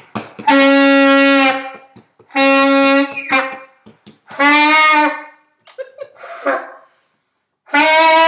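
A child playing a saxophone: four long held notes of about a second each with short gaps between, the first two on the same pitch, the third wavering, the last a little higher.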